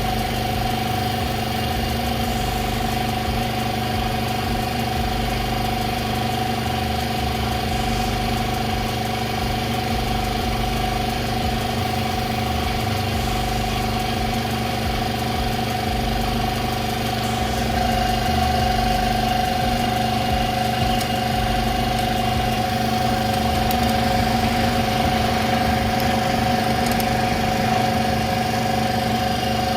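A small engine idling steadily with an even hum, rising slightly in level about two-thirds of the way through.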